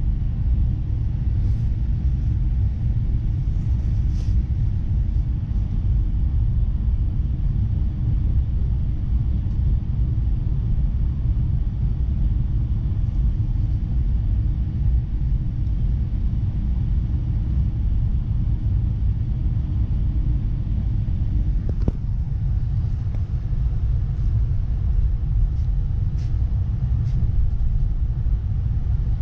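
ES2G Lastochka electric multiple unit running, a steady low rumble heard inside the passenger car. A steady hum over it cuts out with a click about three-quarters of the way through.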